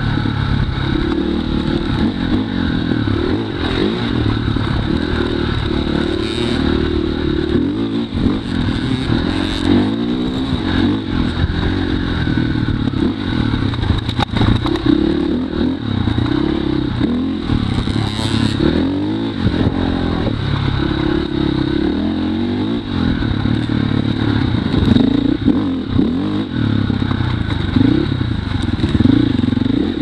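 Dirt bike engine running close to the microphone, its pitch rising and falling over and over as the throttle is opened and closed. Occasional knocks come through as the bike rides over rough ground.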